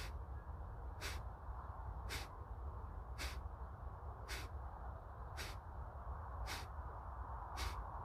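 Kapalbhati pranayama breathing: short, forceful exhalations through the nose, about one a second in an even rhythm.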